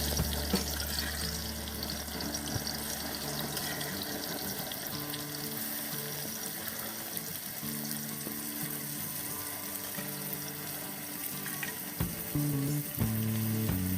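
Hot coconut oil sizzling steadily in a pan, with mustard seeds frying in it.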